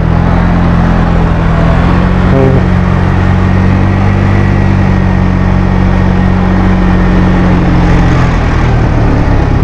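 Suzuki Skydrive scooter's single-cylinder four-stroke engine running at a steady pitch on the move, its CVT fitted with 15-gram rollers; the note eases off a little near the end.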